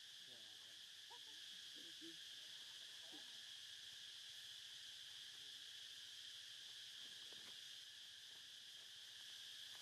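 Faint steady insect drone, an even high buzz, with a few faint short sliding calls in the first few seconds.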